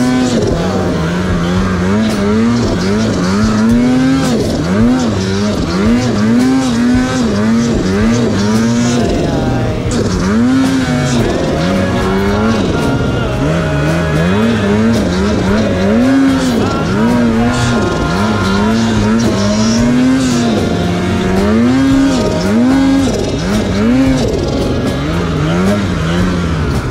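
Mountain snowmobile engine revving up and easing off over and over under load in deep powder, its pitch rising and falling every second or so.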